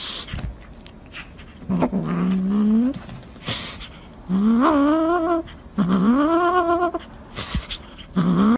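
A cat gives three long, low yowling growls, each about a second long, rising in pitch and then holding, as it bites and mouths at a person's sleeve. A fourth call is cut short near the end. Brief rustling noises come between the calls.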